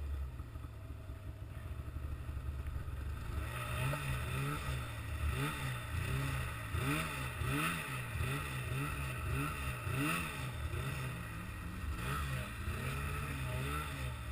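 A vehicle engine running low and steady, then from about three seconds in revving up and down over and over, rising and falling in pitch roughly once a second.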